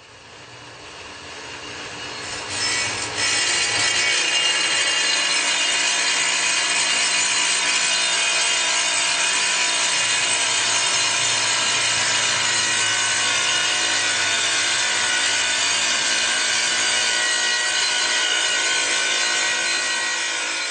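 Power saw cutting through a granite tile: a steady, high grinding whine of the blade in the stone, growing louder over the first few seconds and then holding level.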